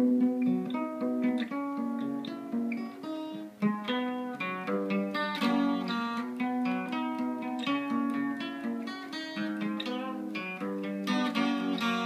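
Acoustic guitar playing a picked pattern of single notes and chords, several notes a second, starting abruptly.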